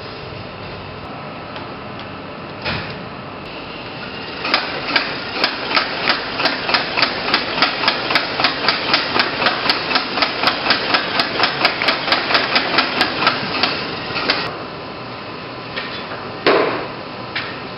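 IMAX 15/70 film projector mechanism clicking at an even pace, about four clicks a second for some ten seconds, over a steady machine-room hum. A single thump follows near the end.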